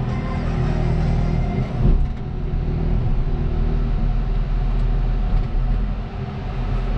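Engine of a heavy land-clearing machine running steadily with a deep, even note, with one brief louder knock about two seconds in.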